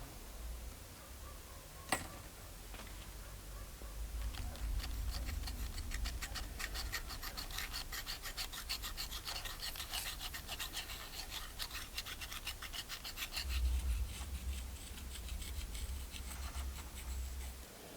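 Rapid, irregular scraping and rubbing strokes of hand work on a lure part, starting about four seconds in and running until near the end. There is a single sharp click about two seconds in and some low bumping under the strokes.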